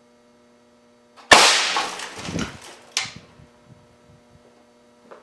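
A 1-inch ball valve air cannon with a .565-calibre barrel fires a hard-alloy cast lead slug at 375 psi: one sudden, very loud blast about a second in as the slug hits an LCD monitor, with a long fading tail. A second sharp crack follows about a second and a half later, then a few small knocks.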